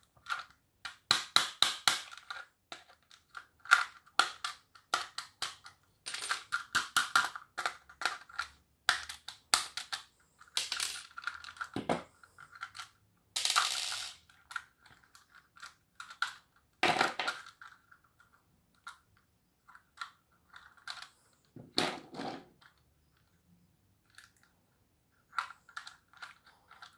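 Plastic housing parts of a Noark fuse disconnector being pried apart and handled: a long run of small clicks, cracks and rattles, with a few louder snaps scattered through.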